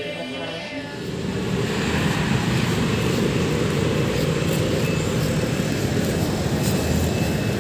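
Background music that ends about a second in, giving way to a loud, steady, low rumble of outdoor traffic noise.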